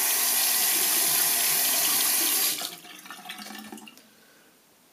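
Bathroom sink tap running full into the basin, shut off about two and a half seconds in, followed by a second or so of fainter water sounds.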